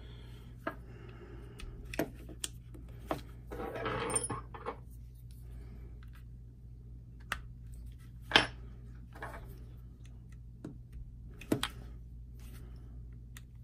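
Small metal and polymer clicks and taps from Glock 19 Gen 4 frame parts being worked back together by hand, with a pick tool pushing at the trigger-housing pins. The clicks come one at a time every second or so, the loudest about eight seconds in, over a low steady hum.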